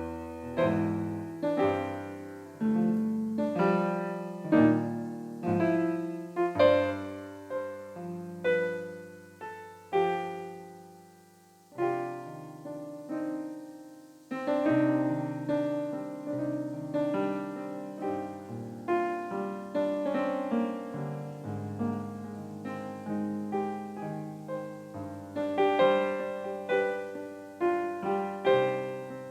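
Solo electronic keyboard played with a piano sound, improvising chords and a melody line, each note struck and left to ring away. Partway through, the playing thins to a single long fading chord before new chords come in.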